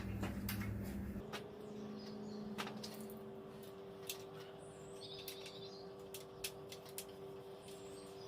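Scattered light metal clicks and taps of washers and lock nuts being handled and set onto seat-mount bolts, over a faint steady hum. A bird chirps briefly in the background about five seconds in.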